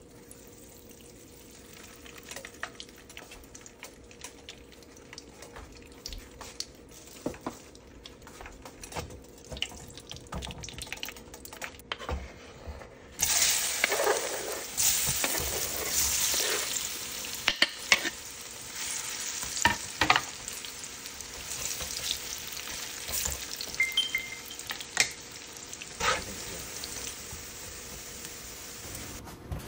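Fat frying in a pan with light crackling. About halfway through, diced vegetables are dropped into the hot fat and set off a sudden loud sizzle, which then settles to steady frying. A metal spatula taps and scrapes the pan as the cubes are stirred.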